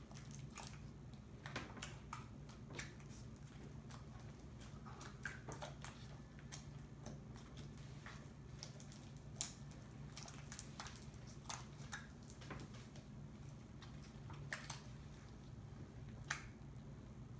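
Homemade glue-and-saline slime being kneaded and squeezed by hand, giving faint, irregular sticky clicks and pops as food coloring is worked in.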